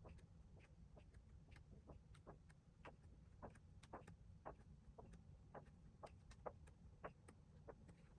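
Faint, irregular small clicks and taps of toys and packaging being handled, over a low steady hum.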